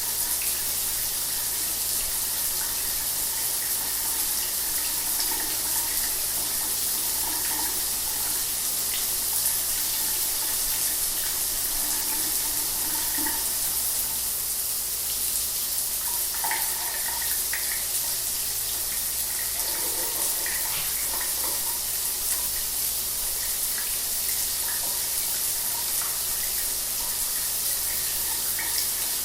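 Shower water running steadily, a constant even hiss of spray falling.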